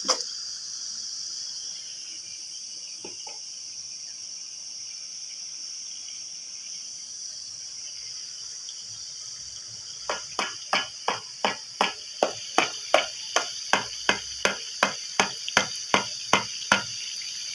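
A cream carton shaken and tapped over the karahi to get the last of the cream out: a run of sharp, regular knocks, about three a second, starting a little past halfway, over a steady high hiss.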